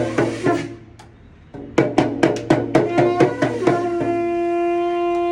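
Damru (small hourglass rattle drum) shaken in quick, even strokes, breaking off for about half a second about a second in and then resuming. About three seconds in a shankh (conch shell) joins with one long, steady blown note over the drumming.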